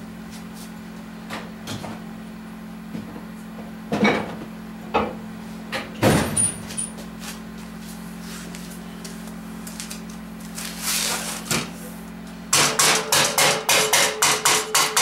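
A few scattered knocks of parts being handled on a metal workbench over a steady low hum. About two and a half seconds from the end comes a fast run of sharp hammer taps, about five a second, on the valve stem tips of a 5.7 L Vortec cast-iron cylinder head, and the metal rings. The taps seat the freshly installed valve keepers.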